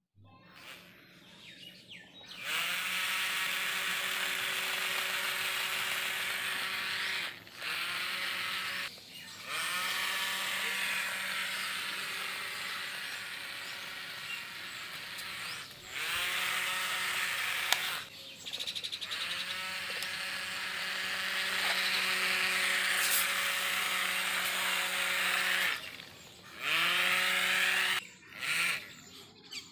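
Small DC motors of a homemade remote-control matchbox car whining as it drives. The whine cuts out and restarts several times, rising in pitch each time it spins back up.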